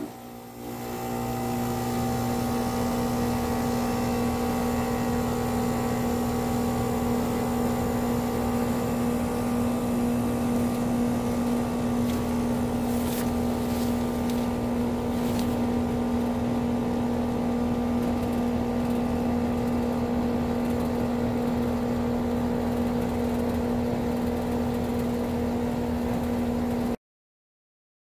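Air-conditioner outdoor condensing unit starting in cooling mode, with its top airflow restricted by a charging jacket: the compressor and condenser fan come up to speed over the first second or two, then run with a steady hum. The sound cuts off suddenly near the end.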